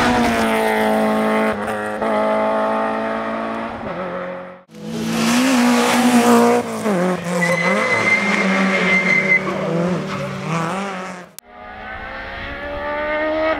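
Rally car engines at high revs in three separate takes, each ending in a sudden cut. The first car holds steady high revs. The second, close by, revs up and down with a high whine for a couple of seconds, and the last comes in with rising revs.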